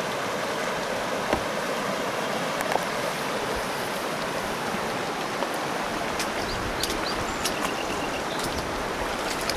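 Rushing river rapids: a steady wash of fast-flowing water.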